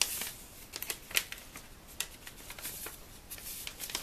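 Striped paper treat bag being handled and folded along its score lines: irregular crisp rustling with a few sharper crackles of the paper.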